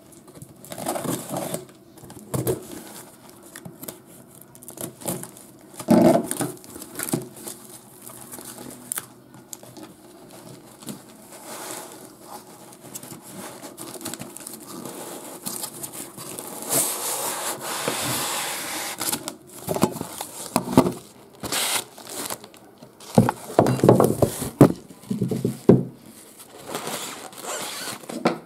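A cardboard shipping box being unpacked: flaps opened and packing paper rustled, crumpled and torn in irregular bursts, with a longer stretch of tearing or scraping a little past halfway.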